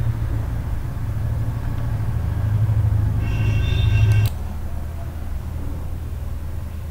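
Steady low background hum that swells and then drops suddenly about four seconds in, with a faint high tone sounding for about a second just before the drop.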